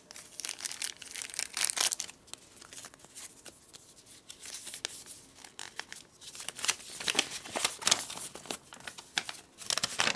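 A folded paper instruction sheet being handled and unfolded: irregular rustling and crinkling of paper, loudest about two seconds in and again over the last few seconds.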